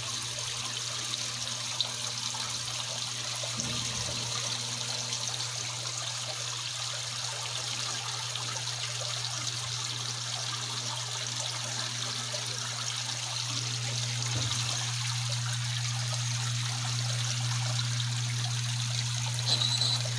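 Vintage Frigidaire top-loading washing machine filling, water rushing into the tub in a steady hiss, with a steady low hum under it that grows louder about two-thirds of the way through.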